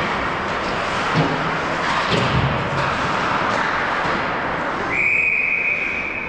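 Ice hockey play on a rink: skates scraping the ice under a steady din, with a few sharp knocks of stick and puck about one and two seconds in. About five seconds in, a referee's whistle blows one long steady blast, stopping play.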